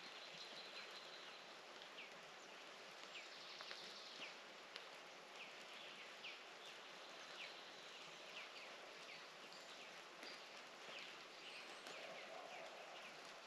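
Quiet outdoor ambience: a faint hiss with many short, high, falling chirps from small birds scattered irregularly throughout.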